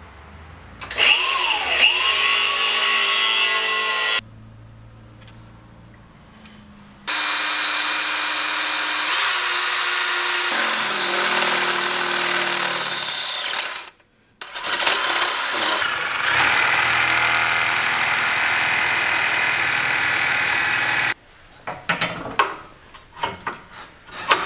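DeWalt cordless drill running in long stretches with a steady whine, a bit boring into a steel suspension bracket; its speed dips and rises under load and it stops and restarts twice. Metal parts clink near the end.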